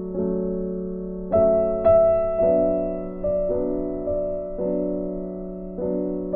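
Background piano music: soft chords struck about once a second, each fading before the next, with a brighter, louder pair of notes about a second and a half in.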